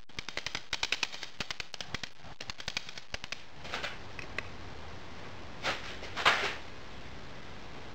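A steel rapping bar set into a sand-moulding pattern is struck with a second metal rod in rapid runs of light taps, about seven a second, for roughly three and a half seconds. The tapping loosens the pattern in the packed moulding sand so it can be drawn. A few short noisy swishes follow, the loudest a little after six seconds in.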